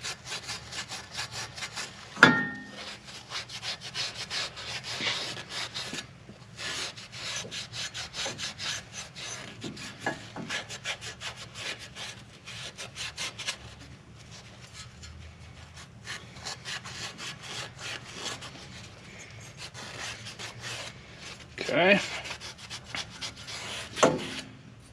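Rapid back-and-forth scrubbing of a Scotch-Brite abrasive pad on the truck's hub mounting surface, working rust spots and grime out of the grooves where the new wheel bearing hub seats. There is a sharp metallic clink with a short ring about two seconds in.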